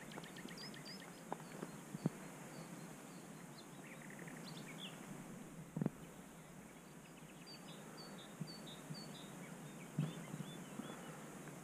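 Faint birdsong: several small birds chirping and trilling over a steady low hiss of outdoor background, with a few soft knocks scattered through.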